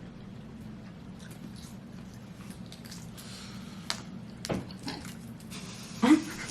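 Wet, squishing handling of boiled food with scattered clicks and crackles as hot boiled eggs are cracked and their shells peeled, with the loudest crack near the end.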